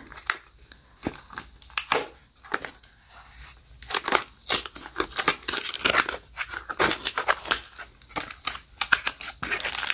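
Small cardboard blind box being opened by hand: its seal peeled and torn off and the flaps pulled open, with many quick crinkling and tearing sounds of paper and card.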